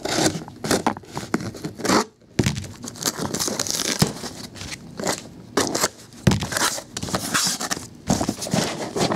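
Scissors slitting packing tape on a corrugated cardboard case, then the case handled and its flaps pulled open: a run of scraping, tearing and rustling with a few sharp knocks, pausing briefly about two seconds in.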